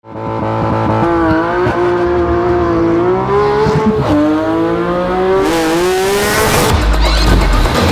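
Porsche 911 GT3 RS naturally aspirated flat-six revving hard through the gears: the pitch climbs, then drops sharply at upshifts about four and five and a half seconds in. A harsh rasp grows as it winds out, and the last second is a deep low rumble.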